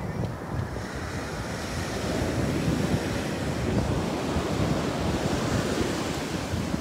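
Ocean surf breaking and washing up a sandy beach, swelling a little about two seconds in, with wind buffeting the microphone.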